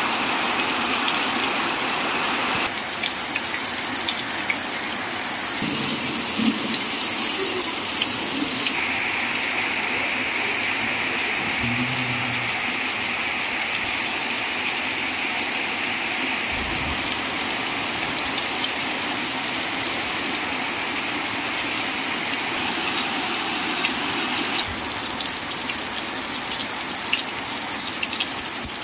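Heavy rain pouring down in a dense, steady rushing hiss. The tone shifts abruptly every six to eight seconds as the rain is heard in different spots.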